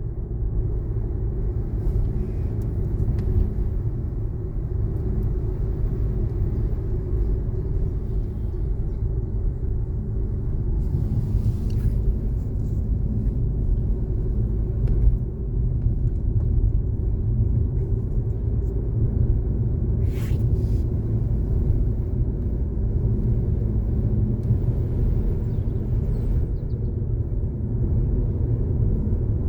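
Steady low rumble of a car driving along a road: engine and tyre noise, with a couple of brief fainter hisses.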